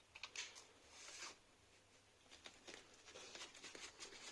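Near silence: room tone with a few faint, brief clicks and rustles.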